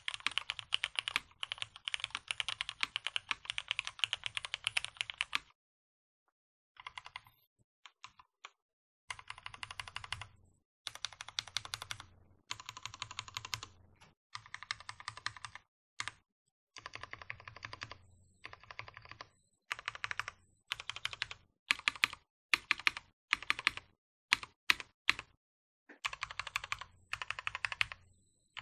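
Typing on a Matrix 8XV 2.0 Add tenkeyless mechanical keyboard: lubed Cherry MX Black linear switches with 63.5 g slow-curve springs and switch films, in a top-mounted aluminium plate with no dampening, under Hammerworks CRP keycaps. Steady fast typing for about five seconds, a brief pause, then short runs of rapid keystrokes separated by gaps, with a string of single, louder strokes about two-thirds of the way through.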